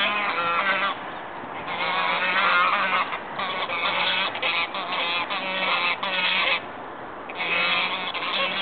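Several white domestic geese honking loudly in long runs of repeated calls, broken by short pauses, as they squabble.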